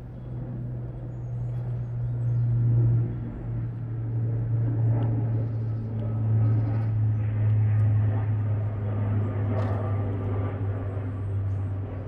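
Aircraft passing overhead: a steady low engine drone that grows louder over the first few seconds, then holds.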